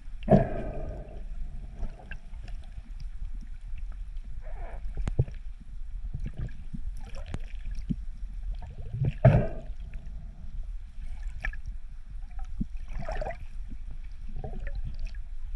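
Muffled underwater water noise heard from a camera just below the surface: a low steady rumble with gurgling and sloshing. There are louder splashy surges about half a second in and again about nine seconds in.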